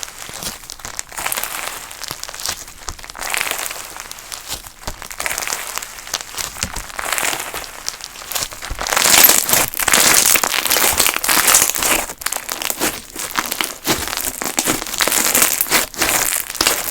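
Clear crunch slime being squeezed and worked by hand close to the microphone: a dense, continuous run of crinkly crackles and pops, louder from about halfway through.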